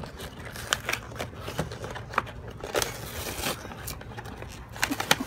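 Cardboard toy box with its plastic packaging being pulled and torn open by hand: irregular crackles and sharp clicks, with a longer rustle about three seconds in.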